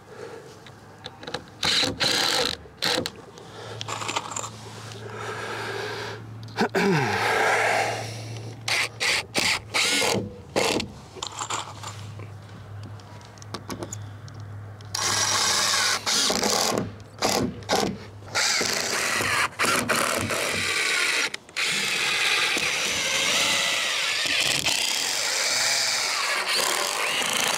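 Cordless drill driving screws into plywood sheathing: short runs of the motor with pauses in the first half, then longer, near-continuous running.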